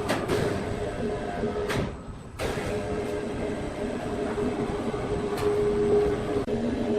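Sawmill machinery running: a steady mechanical rumble with a constant hum, broken by a few sharp clanks. The noise dips briefly about two seconds in, then comes back sharply with a clank.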